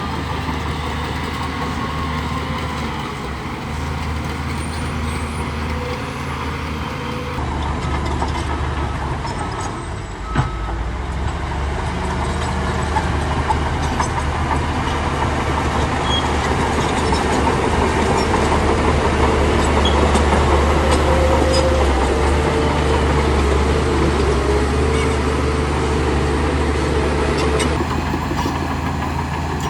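Heavy diesel engine of a bulldozer running steadily, louder in the second half, with one sharp knock about ten seconds in.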